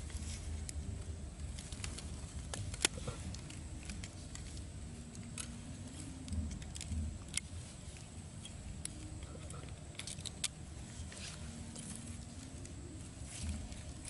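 Faint handling noises as hands tie thin cord around a bamboo stake: scattered light clicks and rustles, the sharpest a little under 3 seconds in and just after 10 seconds in, over a low steady rumble.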